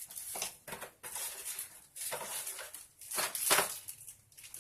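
Rustling and light clatter of packaging and small accessories being handled, in irregular bursts, the loudest a little past the middle.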